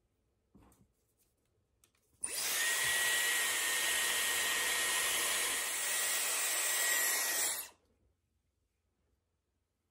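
Dyson Airwrap running with its round brush attachment: a steady rush of blown air with a thin high whine from the motor. It starts abruptly about two seconds in and stops about five and a half seconds later.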